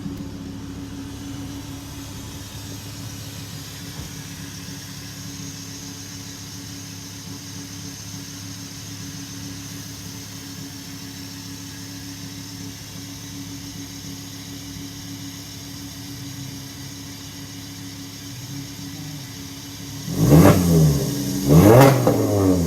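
A 2007 Volkswagen Rabbit's 2.5-litre five-cylinder engine idles steadily. Near the end the throttle is blipped twice in quick succession, the engine note rising and falling each time, louder than the idle.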